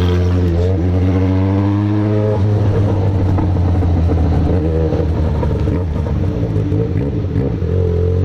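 Yamaha XJ6 600 cc inline-four motorcycle engine with an aftermarket 4-into-1 exhaust, running at low speed in city traffic. Its pitch rises slightly over the first two seconds, then holds steady.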